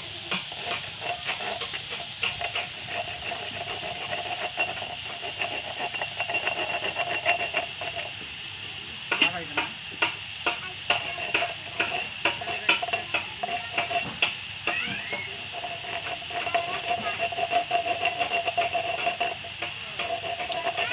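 Pitha frying in hot oil in an iron wok: the oil sizzles and spits with rapid small pops throughout. A steady tone runs underneath and drops out twice, about a third and about three-quarters of the way through.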